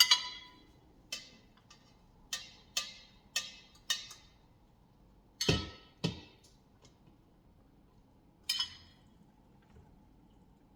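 A utensil clinking and knocking against the Instant Pot's stainless steel inner pot while lamb chops are lifted out: about nine sharp clinks at uneven intervals, a few ringing briefly.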